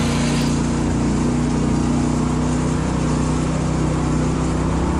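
Karakat all-terrain vehicle's engine running steadily under way, at an even pitch and loudness.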